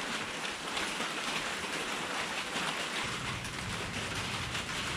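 Steady rain falling, an even hiss, with a low rumble joining about three seconds in.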